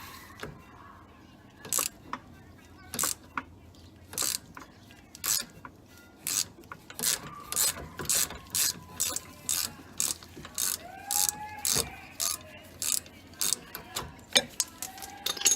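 Socket ratchet wrench clicking as a brake caliper bolt is turned. The clicks are sparse at first, then come at about two a second.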